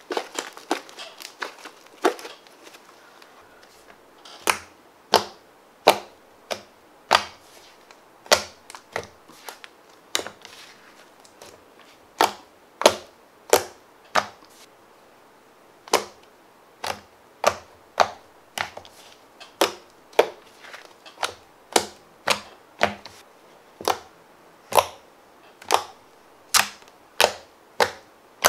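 Thick chocolate-brown fluffy slime being squeezed, pressed and poked by hand, giving sharp wet pops and clicks. A cluster of smaller crackles comes in the first few seconds, then single loud pops about one to two a second.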